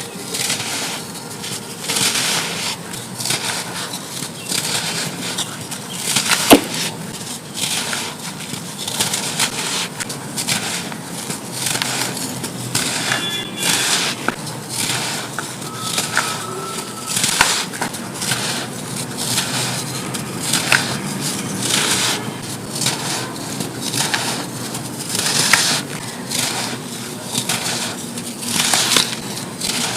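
Pressed lumps of pure sand crumbling and crunching, one gritty crush after another, roughly one a second, with one sharper crack about six seconds in.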